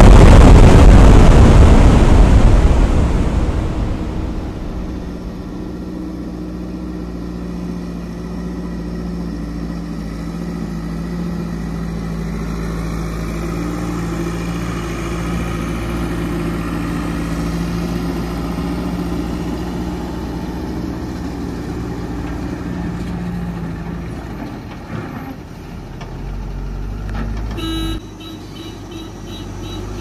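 Heavy diesel machinery running steadily, a backhoe loader working with tipper trucks. A loud crash comes at the start and dies away over about four seconds. The sound changes abruptly near the end.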